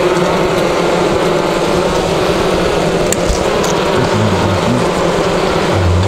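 Steady hum of honeybees over an opened hive's frames, mixed with wind rushing on the microphone.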